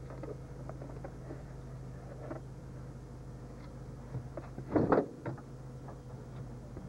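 Car engine running steadily, heard from inside the cabin. About five seconds in there is a loud clunk, and after it the engine hum stops.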